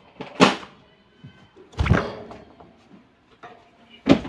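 Three sudden knocks and rattles, the loudest about two seconds in: a common bulbul moving about its wire cage as it leaves its perch.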